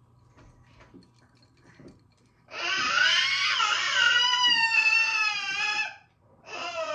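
A long, high-pitched wailing call starting about two and a half seconds in, wavering and falling slightly in pitch, followed by a second wail starting near the end.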